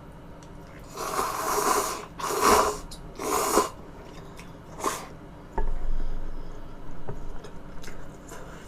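Close-miked mouth sounds of eating: three long, loud slurps in quick succession, a short fourth one, then softer wet chewing.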